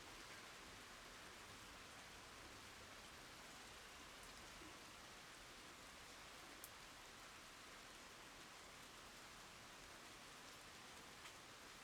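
Faint, steady rain falling, with the occasional single louder drop ticking out of the patter.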